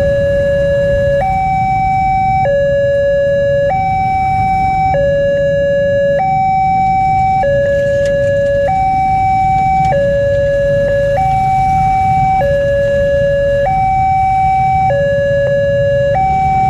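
Railroad level-crossing warning alarm: an electronic two-tone signal switching back and forth between a higher and a lower tone, each held about a second and a quarter, with a low rumble underneath.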